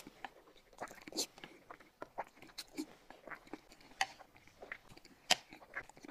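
Close-up mouth sounds of people eating noodles: chewing and biting with irregular short clicks and crackles, the sharpest one about five seconds in.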